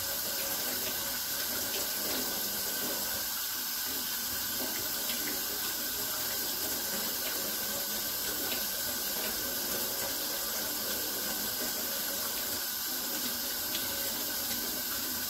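Kitchen faucet running steadily into a stainless steel sink as wild onions are rinsed under the stream, with a few faint ticks.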